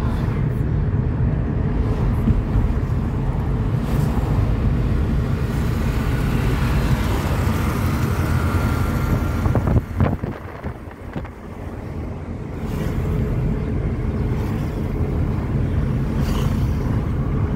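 Steady low rumble of road and engine noise inside a moving car. It spikes briefly about ten seconds in, drops away for a couple of seconds, then comes back.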